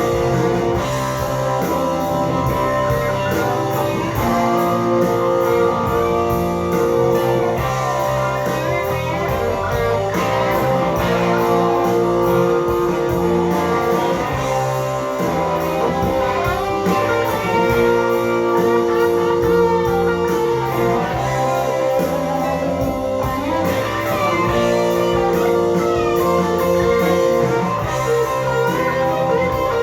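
Guitar-led southern rock music playing from the A side of a vinyl record, with electric guitar to the fore.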